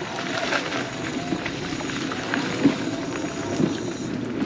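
A scooter rolling along a dirt trail strewn with dry leaves: steady rolling and crunching noise from the tyres, with a couple of short knocks from bumps in the path.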